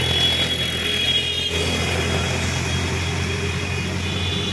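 Steady low rumble of road traffic, with no speech over it.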